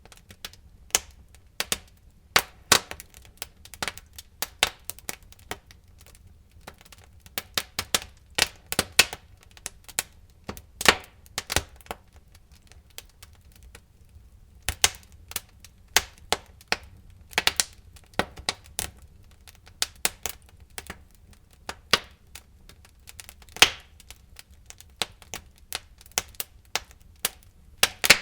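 Wood fire crackling in a fireplace: irregular sharp pops and snaps, at times several a second, over a faint steady low rumble.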